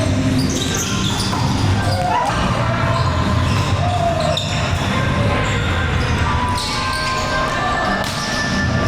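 Indoor volleyball play in an echoing gym hall: repeated thuds of volleyballs being hit and bouncing on the court, with people's voices in the background.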